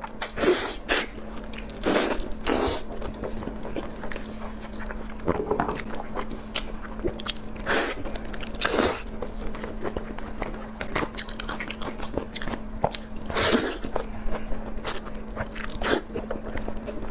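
Close-up eating sounds: a person biting into and chewing food, with irregular wet clicks and crunches.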